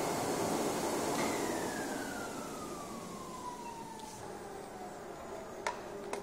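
Flatbed cutting plotter's vacuum-table blower switched off and spinning down. A steady rush fades while a whine glides steadily down in pitch over about four seconds, and two sharp clicks come near the end.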